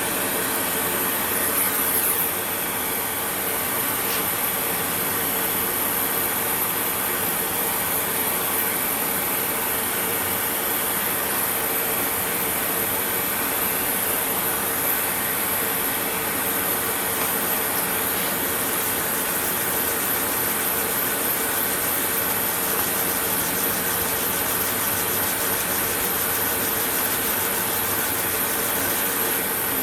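Small electric sanding tool running steadily with a continuous high whine, sanding the underside of a chromatic harmonica's slider with fine sandpaper.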